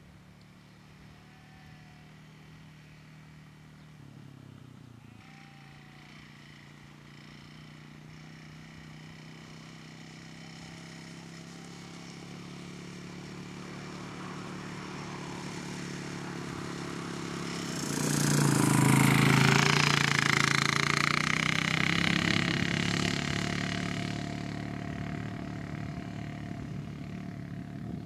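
Quad bike engine running at a steady pace as it drives toward the microphone. It grows gradually louder, passes close about two-thirds of the way in, then fades as it drives away.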